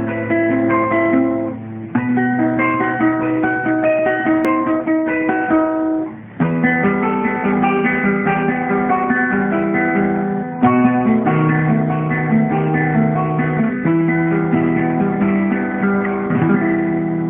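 A classical guitar played solo: a classical piece of single plucked melody notes over held bass notes, in phrases with short breaks every few seconds. The recording is dull, with no high treble.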